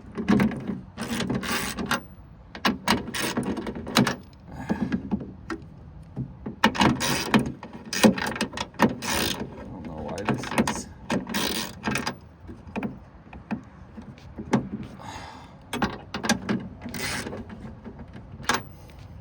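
Hand ratchet with a 13 mm deep socket clicking in irregular bursts as bolts are driven in and tightened, with short pauses between strokes.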